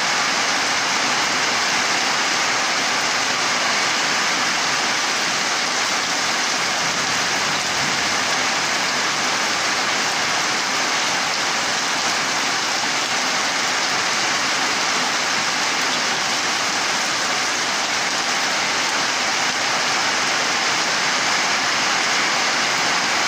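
Heavy tropical downpour falling on dense tree foliage: a loud, steady hiss of rain.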